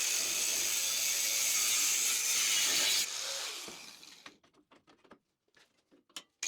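Metal-cutting bandsaw running through steel stock with a steady whir, which dies away about three seconds in, leaving near quiet with a few faint clicks.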